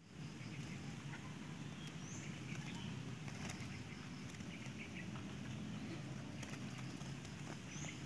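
Eurasian tree sparrows trapped in a wire cage, faintly rustling and pattering, with two short high chirps about two seconds in and near the end.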